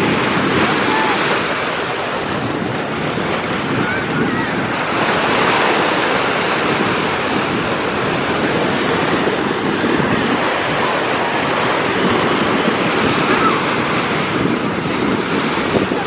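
Small ocean waves breaking and washing up on a sandy beach at the water's edge, a steady rushing surf. Wind buffets the microphone throughout.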